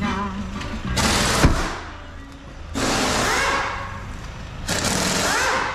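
Background music, with a single thump about a second and a half in.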